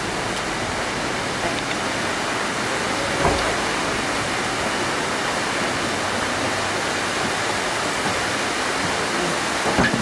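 Steady rushing noise, with a single dull thump about three seconds in.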